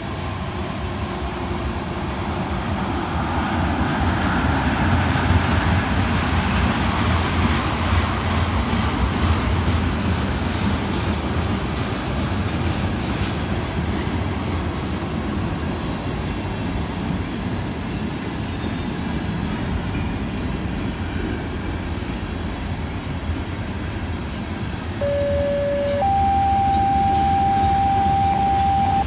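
Loaded freight train of tank cars and covered hopper cars rolling past at slow speed, its wheels rumbling steadily on the rails. Near the end a steady squealing tone sounds, first for about a second, then for about three seconds at a higher and louder pitch.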